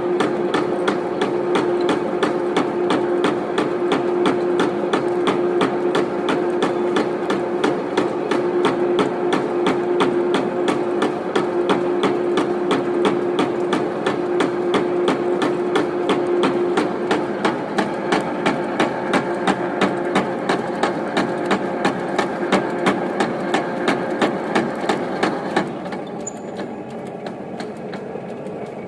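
Centre lathe running slowly in back gear while a drill bores into the workpiece: a fast, even knocking over a steady hum. The hum stops partway through, and the sound drops in level near the end.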